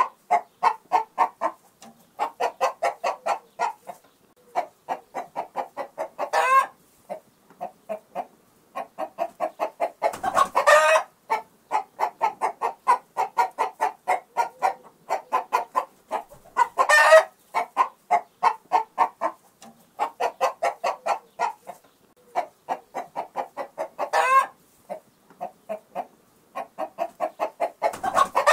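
Chicken clucking: long runs of rapid, evenly spaced clucks, broken about every four to seven seconds by a louder squawk, four in all.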